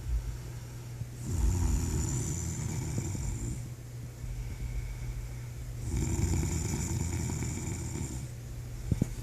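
A sleeping man snoring: two long, rattling snoring breaths, the first starting just over a second in and the second about six seconds in, over a steady low hum.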